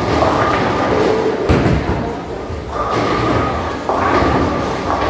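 Bowling alley: a bowling ball striking the pins, with heavy thuds and a clatter about a second and a half in, echoing in a large hall over voices.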